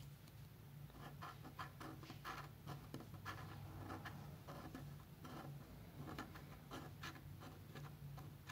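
A coin scraping the latex coating off a $20 Gold Rush scratch-off lottery ticket in quick, uneven strokes, faint, over a low steady hum.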